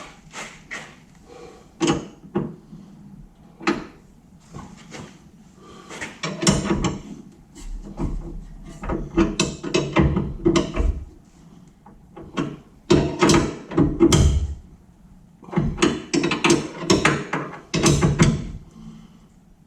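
Irregular clanks, knocks and rattles of metal parts and hand tools being handled, coming in several clusters of quick sharp strikes.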